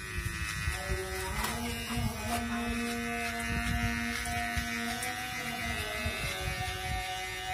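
Small Kemei electric hair clipper buzzing steadily as it cuts hair, with low wind rumble on the microphone.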